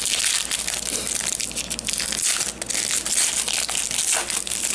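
Foil wrapper of a 2014 Select football card pack crinkling and crumpling in the hands as the pack is opened.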